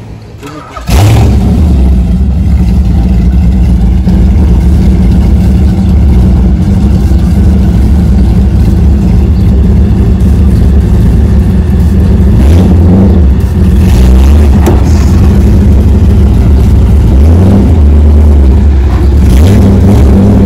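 LS1 V8 engine running loud and close, with a steady low-pitched note that cuts in abruptly about a second in.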